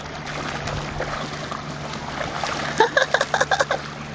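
Pond water splashing and trickling over a low steady hum. About three seconds in, a bird gives a rapid run of about eight short, loud calls.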